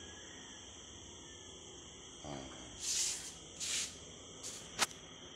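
Steady high-pitched insect chirring throughout, with two short hissing rustles about three seconds in and a single sharp click near the end.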